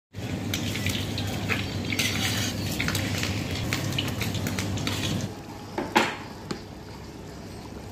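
Metal utensils clinking and scraping against steel cookware during cooking, with a steady frying noise underneath for about five seconds. It then drops quieter, with a few sharper clinks of a ladle on the pot around six seconds in.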